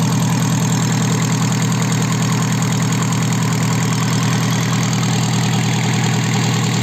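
K4D four-cylinder diesel engine idling steadily with an even, rapid clatter, running on a test stand with an open exhaust manifold and no muffler.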